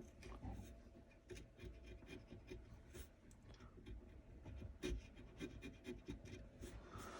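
Faint, irregular scratching and light ticks from a small hand chisel at work, with a few sharper ticks here and there.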